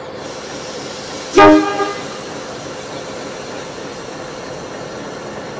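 One short toot on the air horn of Alco 930-class diesel locomotive 958, about a second and a half in, over the steady running of its diesel engine.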